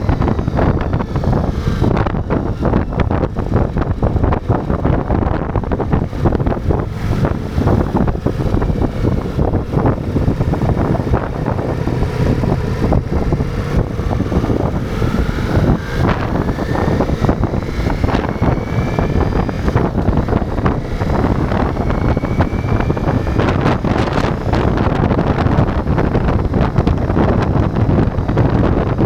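Ducati Multistrada V4 motorcycle's V4 engine running on the move, under heavy wind buffeting on the microphone. The engine pitch rises twice in the middle as the bike accelerates.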